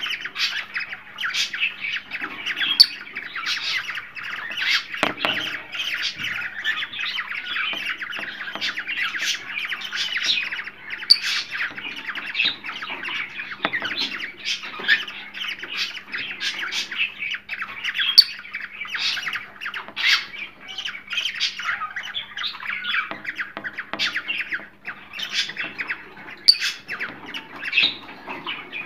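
A group of cockatiels squawking and chattering continuously, many calls overlapping with no pause, over a faint steady low hum.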